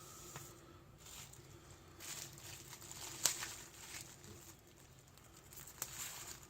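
Faint rustling and crinkling of packaging being handled, with a few light clicks and taps.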